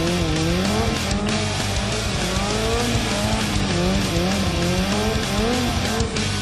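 Sport bike engine revving up and down again and again under stunt riding, with the rear tyre squealing, over background music.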